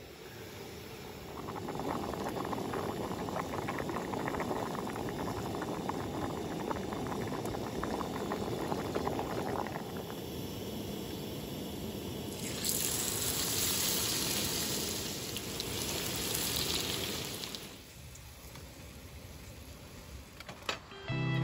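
Food cooking: a bubbling, boiling sound for several seconds, then a brighter, louder sizzle for about five seconds that cuts off suddenly. A few light clicks come near the end.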